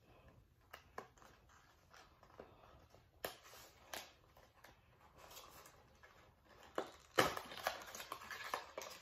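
A small cardboard skincare box being opened and handled: scattered light clicks and rustles, sharper ticks about three and four seconds in, and a louder stretch of rustling from about seven seconds in.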